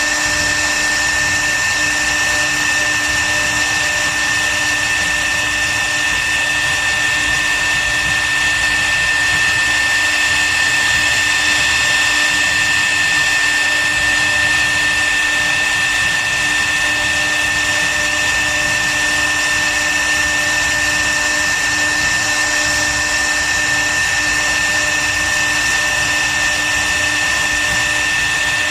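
CNC wood router spindle running steadily at high speed during 3D carving, with a constant high-pitched whine and hiss.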